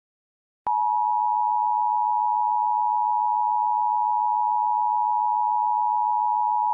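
Emergency Alert System two-tone attention signal (853 and 960 Hz sounding together), a steady sustained tone starting just under a second in. It signals that an emergency alert message is about to be broadcast.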